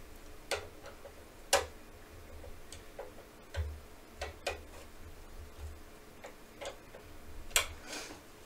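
Irregular light clicks and taps of a screwdriver on screws and the metal chassis of a network switch while rack-mount ears are being screwed on, about a dozen over several seconds, with a few soft low thuds of handling.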